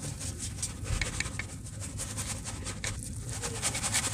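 Wet soil being sifted through a round sieve shaken in a basin of muddy water: a continuous run of fine gritty scraping and swishing as the mud is rubbed through the mesh.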